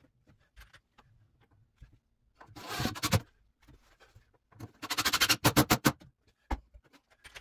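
Cordless impact driver driving self-drilling screws into clamped cabinet face frames: a short whir about two and a half seconds in, then a run of rapid impacts lasting over a second around five seconds in.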